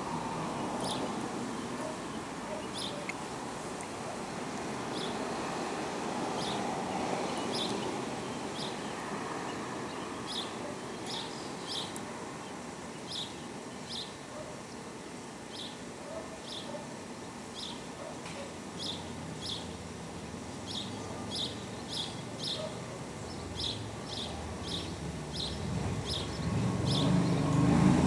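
Outdoor background of distant traffic rumble, with a bird giving short high chirps every second or so that come more often in the second half. A louder low rumble builds near the end.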